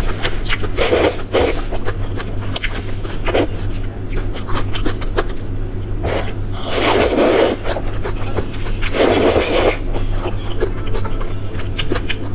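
A person slurping glass noodles from spicy broth in several loud slurps, two long ones past the middle, with wet chewing clicks between them.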